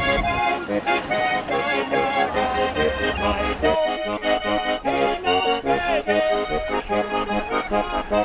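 Lively instrumental background music led by an accordion, with quick changing notes; the low bass drops out about four seconds in.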